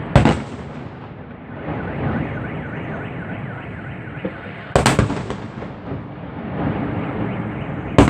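Fireworks salute shells bursting: a sharp bang, then a quick double bang about five seconds later and another bang near the end, with steady crackling and rumbling from the display between them.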